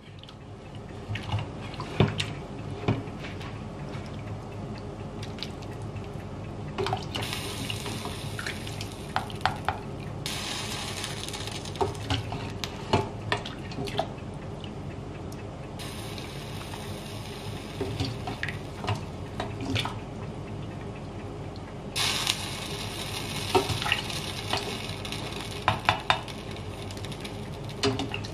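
Boiled chicken feet being scooped with a slotted ladle from a steel pot of water into a pot of broth: water dripping and splashing off the ladle, with many short knocks of the ladle against the steel pots.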